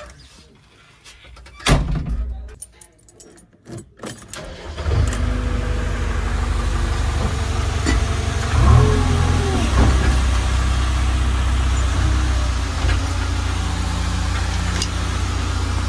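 Two sharp knocks from inside a JCB 3DX backhoe loader's cab, then about five seconds in its four-cylinder diesel engine starts and runs steadily, its pitch briefly rising and falling around nine seconds in.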